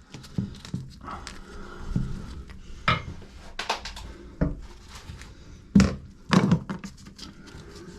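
Irregular knocks and clatter of hard objects being handled, with two louder thumps about six seconds in.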